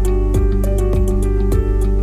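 Background music: a soft instrumental track with sustained bass, held chords and a steady beat.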